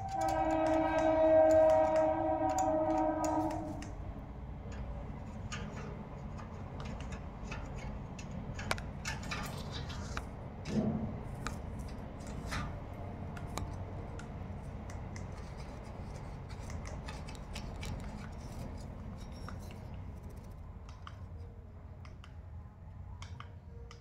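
Rose-ringed parakeet pecking and chewing guava, its beak making small scattered clicks and crunches. A steady pitched tone is held for about the first four seconds, and a brief pitched sound comes about eleven seconds in.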